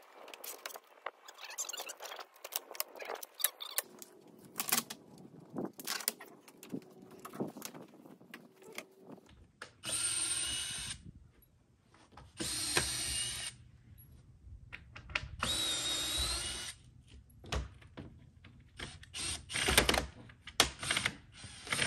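Power drill run in three short bursts of about a second and a half each, starting about ten seconds in, with a whine that shifts in pitch. Knocks and clicks of tools and parts being handled come before and after.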